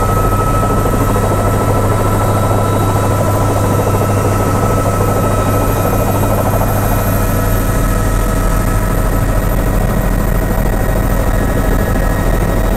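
Helicopter rotor and turbine engine running at takeoff power, heard from inside the closed cabin: a steady deep drone with a thin high whine over it.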